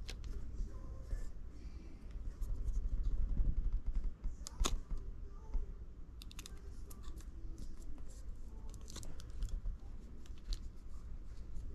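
Light, irregular clicks and taps of small tools and phone parts being handled during an iPhone battery repair, with one sharper click about halfway through, over a low steady hum.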